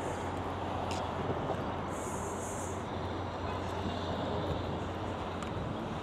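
Steady street traffic noise, a low hum of passing vehicles, with a brief high hiss about two seconds in.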